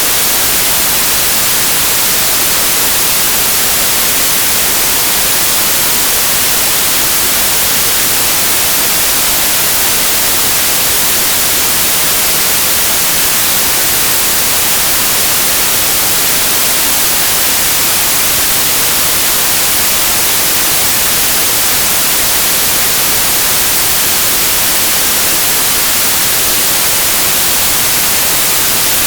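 Steady, loud white noise: an even, sharp hiss with no pattern, pitch or change.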